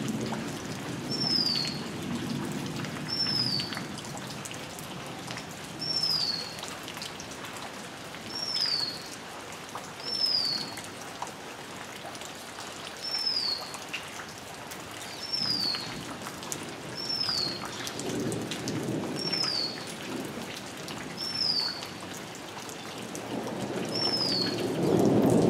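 Steady rain falling on grass and a rainwater puddle, swelling louder near the end. Over it a bird repeats a short, high, falling whistle every one and a half to two seconds.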